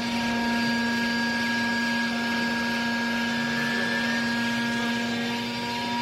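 Hydraulic power unit of a vertical wool baler running: a steady electric-motor and pump hum with a higher whine and a hiss, holding steady throughout.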